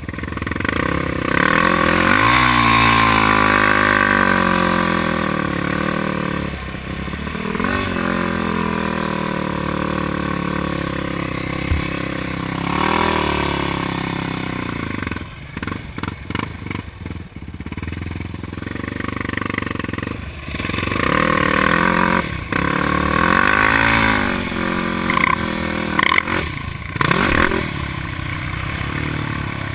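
Yamaha sport quad single-cylinder four-stroke engines revving hard, the pitch climbing and falling several times as the throttle is opened and closed. About halfway through there is a choppy stretch of short throttle blips.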